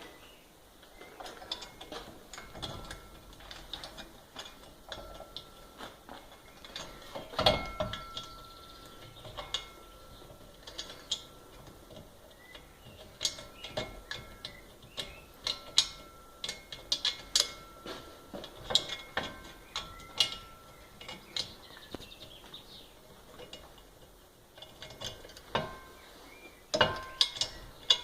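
Irregular clicks and clinks of small metal parts being handled, loudest about a third of the way in and again near the end, with a faint thin tone that comes and goes through the middle.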